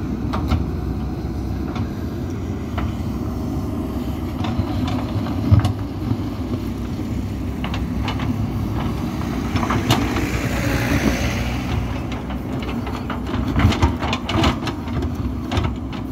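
JCB 3DX Super backhoe loader's diesel engine running steadily under load as the backhoe digs, with scattered knocks and scrapes from the bucket in stony soil that come more often in the last few seconds. A brief rushing noise about ten seconds in.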